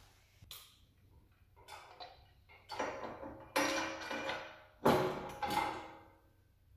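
Steel frame tube and hopper of a Brinly-Hardy tow-behind aerator spreader being handled and fitted together on a concrete floor. A run of metal clanks and knocks, each with a short ring, the loudest about five seconds in.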